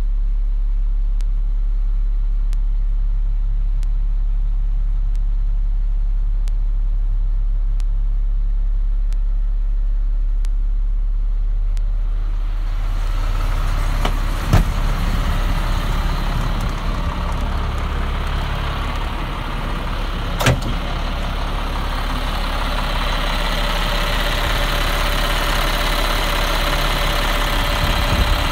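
Caterpillar diesel engine of a 2005 Freightliner M2 106 idling steadily. For the first dozen seconds it is heard muffled through the closed cab, then clearer and brighter once the door is open. Two sharp knocks come a few seconds apart in the second half.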